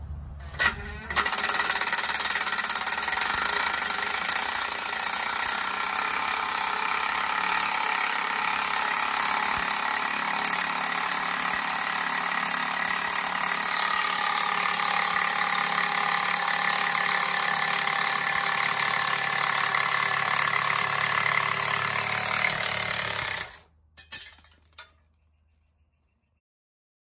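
Cordless drill running without a break for about 22 seconds, turning a scissor jack's screw to compress a car strut's coil spring, then stopping suddenly, with one short burst just after.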